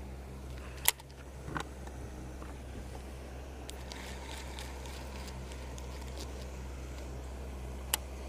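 Electric trolling motor on a bass boat humming steadily. Two sharp clicks cut through it, about a second in and again near the end.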